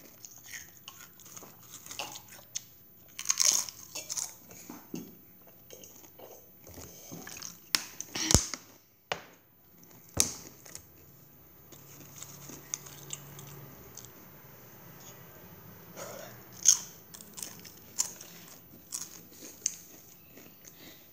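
Doritos tortilla chips being bitten and chewed, with scattered crunching and a few louder sharp cracks.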